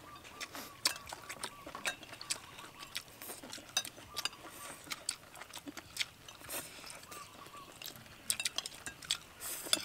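People eating: chewing and lip smacks, with chopsticks and spoons clicking against ceramic bowls in many short, irregular clicks.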